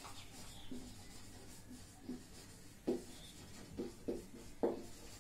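Marker pen writing on a whiteboard: a run of short, separate strokes as letters are drawn.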